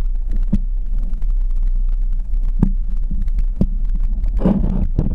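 Quadcopter's electric motors and propellers running with a steady low hum, heard from the GoPro on the craft, with scattered knocks and a brief louder rush near the end.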